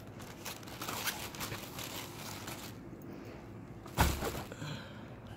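Soft rustling and scraping of packaging as a laptop is slid out of its protective sleeve, with one sharp thump about four seconds in.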